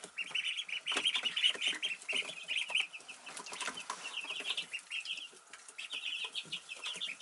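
A brood of week-and-a-half-old Khaki Campbell ducklings peeping, many rapid high cheeps overlapping, with a short lull about five seconds in. Scattered soft taps under the peeping.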